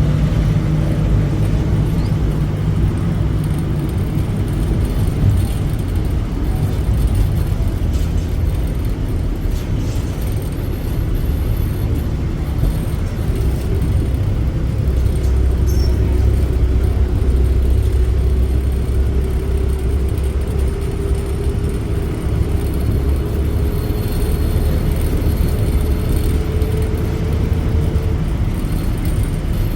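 Steady engine and road noise heard from on board a moving vehicle, with the engine tone slowly rising in pitch through the second half.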